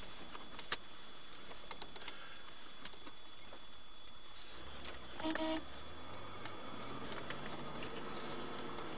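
Steady road and engine noise inside a moving vehicle's cabin, a hiss with scattered light ticks and one sharp click under a second in. A little past halfway a low engine note rises, and a brief pitched tone sounds.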